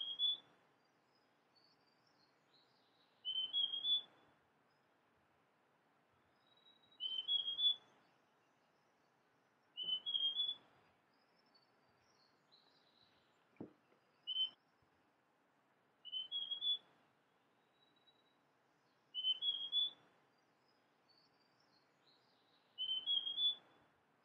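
Large niltava singing: short phrases of two or three whistled notes rising in pitch, repeated about every three seconds. Faint high chirps of other birds sound between the phrases, and there is one soft tap about halfway through.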